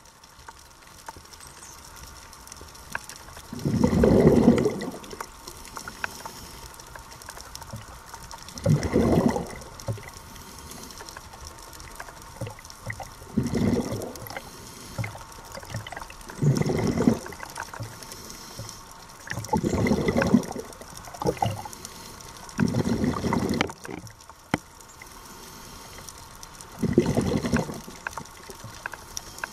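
Scuba diver's regulator breathing heard underwater: a gurgling rush of exhaled bubbles lasting about a second and repeating every three to five seconds, with a faint steady hiss between breaths.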